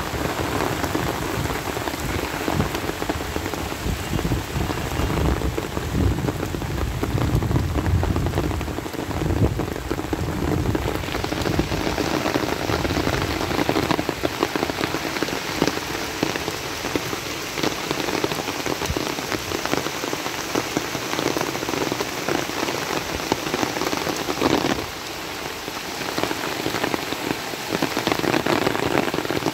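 Heavy rain pouring onto floodwater and garden foliage, a steady hiss that gets brighter about ten seconds in, with a low rumble underneath before that.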